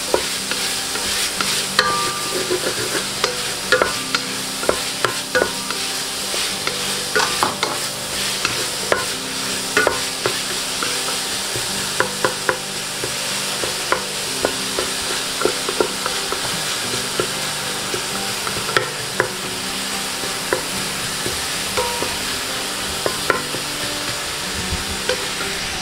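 Bacon bits sizzling in their own rendered fat in a stainless steel pot, stirred steadily with a wooden spatula. The spatula scrapes the pot and knocks against it in frequent sharp clicks.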